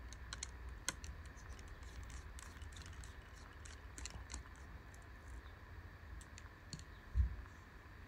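Small screwdriver backing out the screws that hold a laptop's internal battery: faint, irregular light clicks of the bit and screw. One dull thump about seven seconds in.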